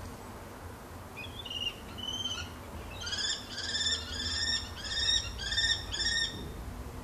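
Common kestrel calling during a squabble between two kestrels over prey. It gives a few short, thin calls, then from about three seconds in a rapid run of about eight repeated calls, nearly three a second.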